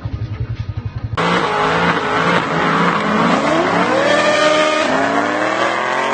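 About a second of fast, low throbbing, then a sudden switch to a supercar's engine accelerating hard. Its pitch climbs steeply, drops at an upshift about five seconds in, and climbs again.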